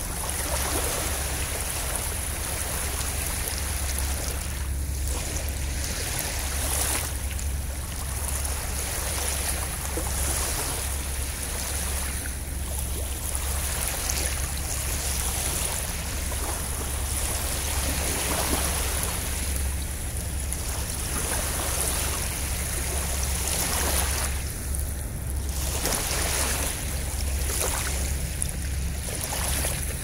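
Small sea waves lapping and washing in over sand and pebbles at the water's edge, swelling and easing every few seconds, with a steady low rumble underneath.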